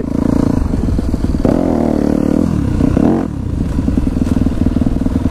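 Yamaha dirt bike engine running at low speed as it is ridden, the revs rising and falling between about one and a half and three seconds in, then holding steady.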